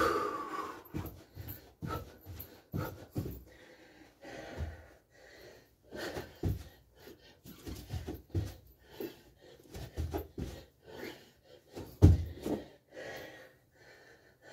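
A man breathing hard and panting through a bodyweight burpee routine of jumping jacks, kick-outs and squats, with irregular thuds of feet and hands landing on the floor and mat. The loudest thud comes about twelve seconds in.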